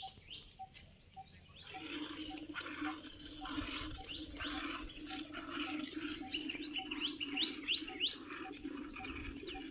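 Milk squirting into a steel pot as a cow is hand-milked: rhythmic squirts at about two a second, starting about two seconds in. Behind it there is a steady low hum and a short bird-like note repeating.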